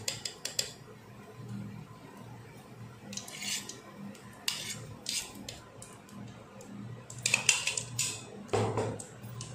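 A metal spoon clinking and scraping against a metal pan several times as ghee is spooned in to melt. A faint low hum runs underneath.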